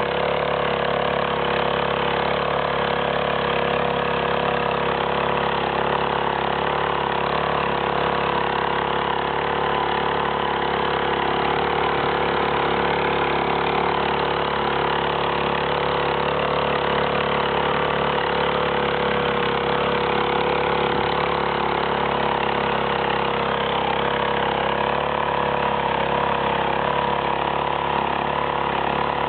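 A machine's engine running steadily at one constant speed, with a steady hum and whine and no changes.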